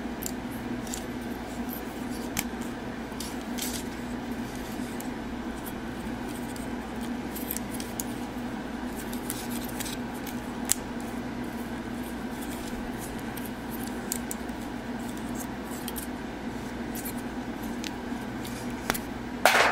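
Plastic parts of a 52Toys BeastBox BB-38 Gunpowder transforming figure clicking and rattling as they are handled and folded, with small clicks throughout and one sharper click about eleven seconds in, over a steady low hum.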